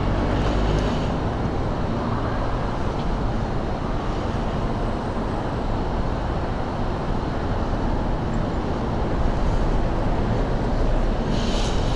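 Steady low rumble of a motorcycle running, mixed with street traffic noise.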